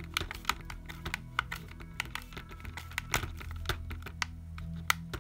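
Hand screwdriver driving a screw into the plastic gearbox and chassis of a Tamiya TA02 RC car kit, fastening the front gearbox: a string of light, irregular clicks as the driver turns and is regripped.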